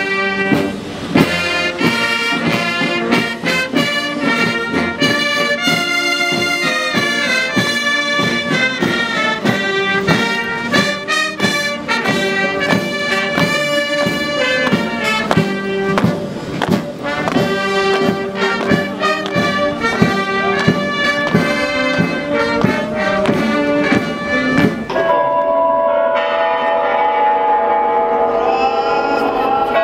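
Military brass band playing a march over a steady drumbeat. About 25 seconds in, it changes abruptly to a softer passage of long held notes.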